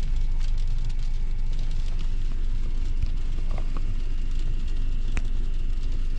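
Steady low rumble inside a Kia Cerato's cabin with the engine running, with a few faint clicks.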